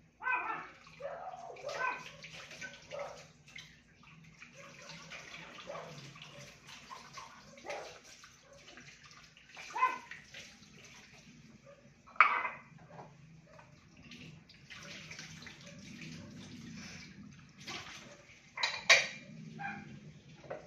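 Tap water running and splashing in a kitchen sink in spells during hand dishwashing, with several sharp clinks of dishes knocking together, the loudest about 10, 12 and 19 seconds in.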